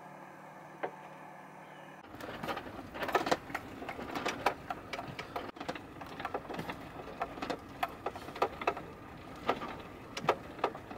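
Camper van rattling and clanking as it drives over a bumpy dirt road: irregular sharp knocks and clatters of loose contents and fittings with each bump, over a rough road rumble. The first two seconds are only a faint steady hum before the driving sound starts.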